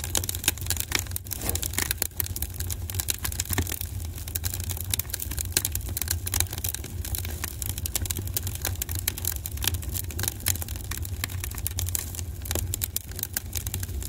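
Fire crackling: a dense, irregular stream of sharp pops and snaps over a low steady rumble.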